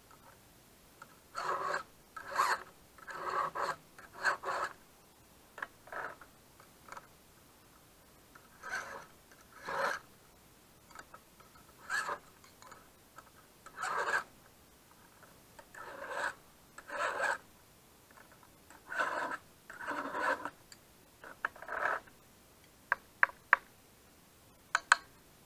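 A hand file rasping across chainsaw chain teeth in separate strokes, one every second or two, sharpening the cutters and taking off filings. A few sharp clicks near the end.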